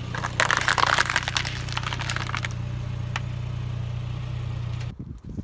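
Stiff plastic blister packaging cracking under a car tyre in a dense run of sharp cracks for about two seconds, with one last click soon after, over the steady hum of the car's running engine, which cuts off near the end.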